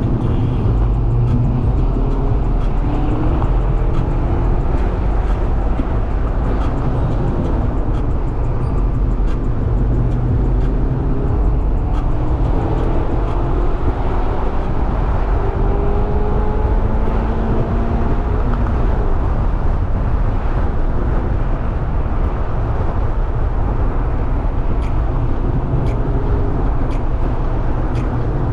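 Mazda MX-5 (ND) being driven: a steady low rumble of road and tyre noise, with the engine note rising in pitch several times as it pulls through the revs.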